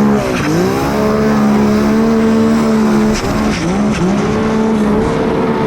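Snowmobile engine running at high revs, its pitch held level and then dipping briefly and climbing back as the throttle is eased and reopened, just after the start and again around three and four seconds in.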